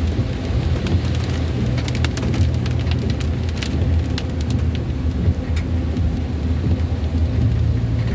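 Steady low drone of the ambulance's engine and tyres on a wet road, heard inside the cabin, with scattered raindrops ticking on the windshield and roof, thickest in the middle.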